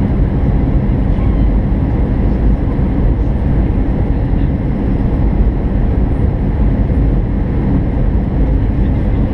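Steady cabin noise of an Airbus A319 in flight on its landing approach, heard by a window beside the wing engine: jet engine and rushing air blending into an even rumble, strongest low down.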